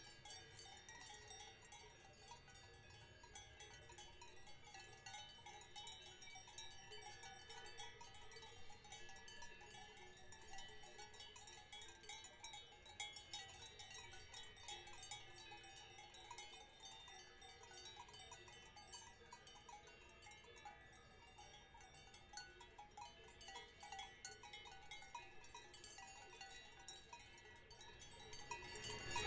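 Faint cowbells ringing and clanking irregularly on grazing cows, several bells at different pitches.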